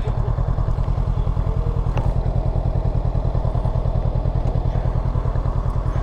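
Big touring motorcycle's engine idling at a standstill, a steady, even pulse with a faint click about two seconds in.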